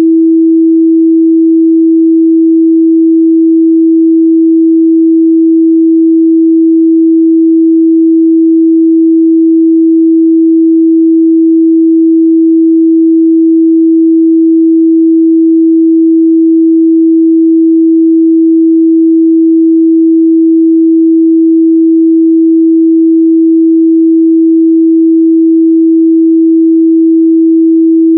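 A steady, loud 326 Hz sine-wave test tone, one pure unchanging pitch held without a break.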